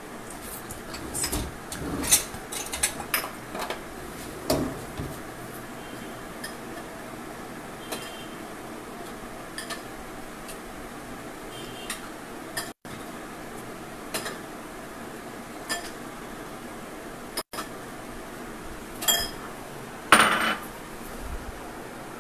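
Bowls and a serving spoon clinking and knocking on a kitchen counter, a quick run of clatter in the first few seconds, then scattered light knocks, with a louder clatter near the end.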